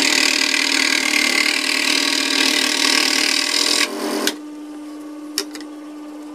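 Bench scroll saw cutting through a thin board, a loud steady hiss over the hum of the reciprocating blade. About four seconds in the cut finishes and the sound drops to the saw running freely with a steady hum, with one light click.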